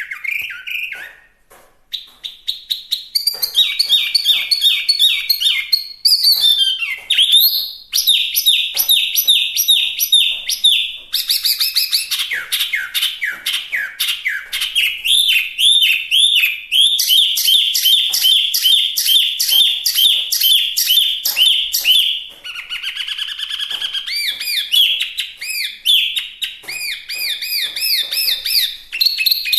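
Chinese hwamei singing a loud, varied song: fast runs of repeated whistled notes, each phrase type held for a few seconds before switching to another, with a short break about a second in.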